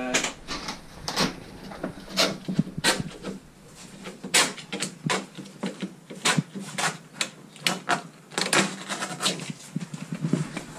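Crackling and rustling of an old MK1 Golf cabriolet's fabric hood and interliner being pulled back by hand from the roof frame, with many irregular sharp snaps and clicks.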